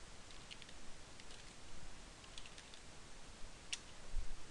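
Faint clicking of keystrokes typed on a computer keyboard: scattered light taps, with one sharper click near the end.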